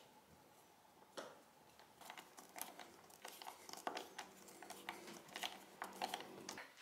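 Hand screwdriver turning a screw through a round wooden fitting into a wall. Faint, irregular small clicks and scrapes start about a second in.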